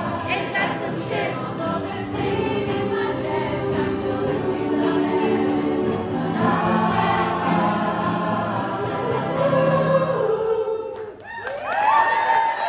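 A large mixed choir sings in full chords, holding a final note. About 11 s in the song ends, and the room breaks into cheering whoops and applause.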